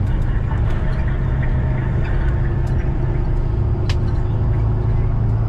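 Engine drone and road noise of a moving vehicle heard from inside the cabin, a steady low hum, with a single sharp rattle or click about four seconds in.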